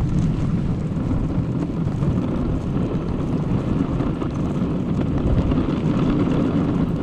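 Dog sled running over a packed snow trail: the runners sliding on snow give a steady low rumbling noise.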